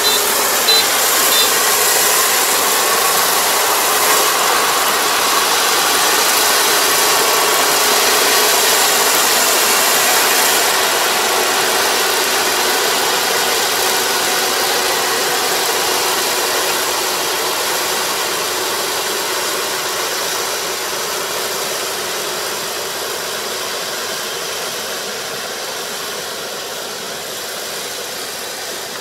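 Kubota ER470 four-row combine harvester running, its engine and harvesting gear making a steady, hissy drone. There are a few short high beeps in the first second or so, and the sound slowly grows quieter through the second half.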